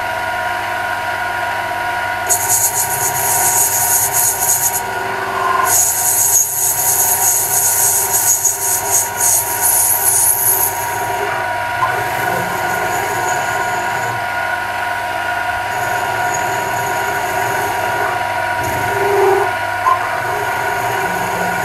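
Conquest Colchester metal lathe running with a steady gear whine while the tool takes a deep cut, a high hissing screech of cutting in two long spells in the first half, lighter later. The cut runs without chatter.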